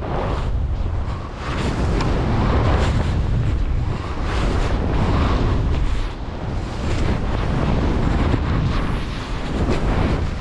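Wind rushing over an action camera's microphone during a fast ski descent through deep, light powder, mixed with the hiss of the skis and snow spray. The rush swells and eases every second or two with the turns.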